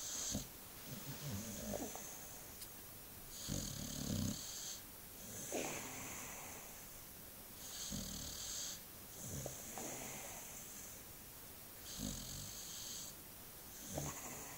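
Boxer dog snoring in her sleep: a rough low snore and a hiss on each breath, one breath roughly every two seconds.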